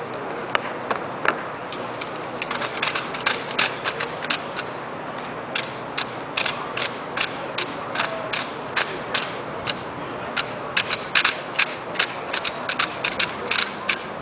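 Armed drill team's rifles being slapped and handled in rippling sequence down the line: sharp slaps and clacks of hands on the drill rifles and rifle butts on pavement, a few at first, then long runs of several a second.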